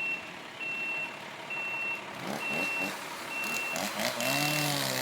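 Work truck's reversing alarm beeping, about one beep a second. Near the end an engine speeds up and holds at a steady pitch.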